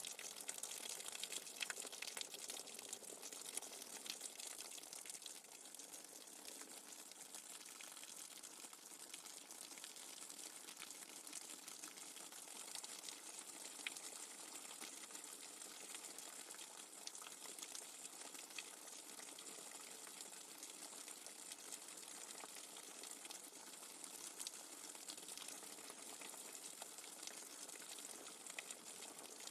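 Steady rain falling, an even hiss with scattered faint drop ticks throughout.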